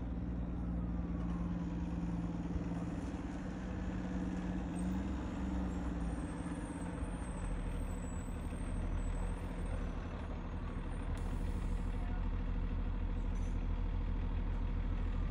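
A motor vehicle engine running steadily with a low drone. About halfway through the drone shifts lower and grows slightly louder.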